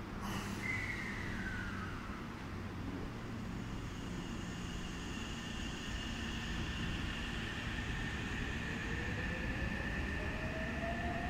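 Seibu 6000 series electric train, refurbished with a SiC-VVVF inverter, pulling away from a station. A brief sharp noise comes just after the start, then a whine falls in pitch. After that come steady high inverter tones, and from about eight seconds a traction-motor whine rises in pitch as the train gathers speed.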